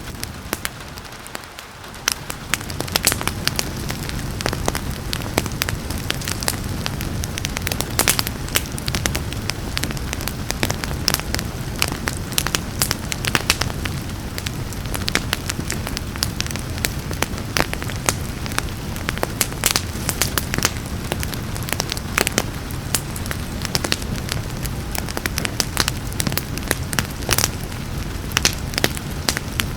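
Wood fire crackling, with sharp snaps and pops scattered throughout over a steady hiss of rain and a low rumble. The sound briefly drops quieter about a second in, then builds back.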